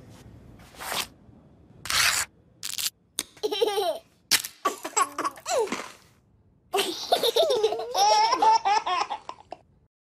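Laughter in several separate bursts, with a longer high-pitched peal of laughing in the last few seconds that cuts off suddenly.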